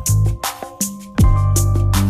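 Electronic background music with a steady beat: deep bass notes and kick drums under regular snare hits.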